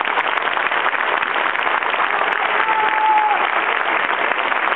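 Stadium crowd applauding, a steady dense clatter of many hands clapping. A brief steady tone sounds about halfway through.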